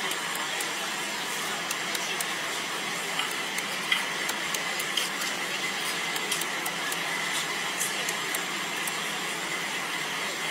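Steady background din at a market stall, with scattered light clicks and knocks and a sharper knock about four seconds in.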